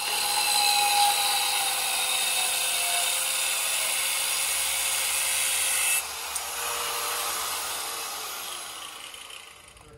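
Angle grinder with a cutoff disc cutting through a steel bracket under a van, a loud steady grinding for about six seconds. The cutting noise stops abruptly, and the grinder's whine sinks in pitch and fades as the disc spins down.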